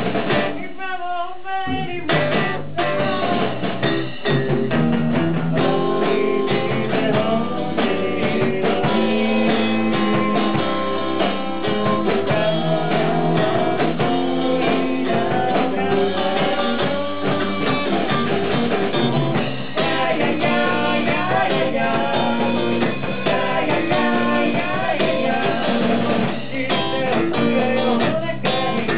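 A rock band playing live, with electric guitar, drum kit and lead vocals. About a second in, the bass and drums briefly drop out before the full band comes back.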